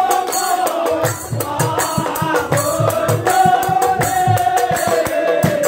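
Nagara naam devotional chorus: a group of men chanting long held notes in unison over large nagara drums beaten in a steady beat of about three strokes a second, with small hand cymbals clashing.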